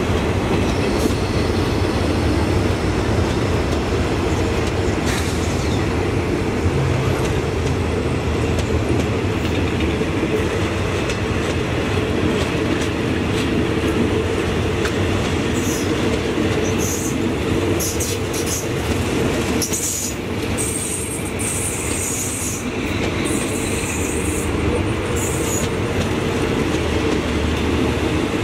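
Passenger carriages of a train rolling slowly past close by, the wheels running steadily on the rails. In the second half there are intermittent high-pitched wheel squeals.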